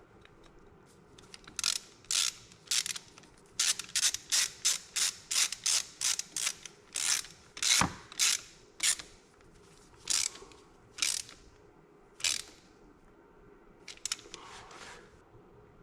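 A series of about twenty short, sharp mechanical clicks, coming in uneven runs and at their quickest about two a second, then a softer scraping rasp near the end.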